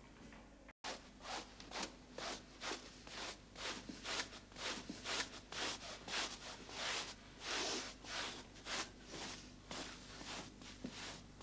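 Hand brush sweeping a rug into a dustpan, in quick scratchy strokes about two a second.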